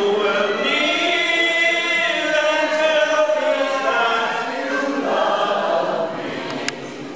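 A small mixed group of men and women singing a song together in unison, the voices falling away briefly near the end, with one short click.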